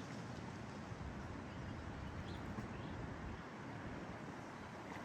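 Steady rushing noise of a flowing river mixed with wind, with a few faint high chirps.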